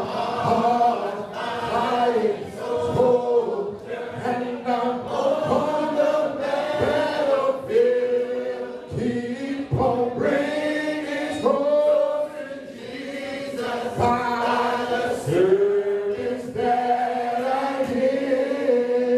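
Unaccompanied hymn singing: a man sings into a microphone while other voices join in, with long held notes.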